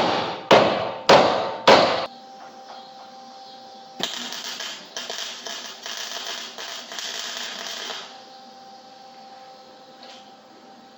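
Metal bodywork shop noise: four loud sharp hits about half a second apart, then a few seconds of rapid rattling bursts, after which a faint steady hum remains.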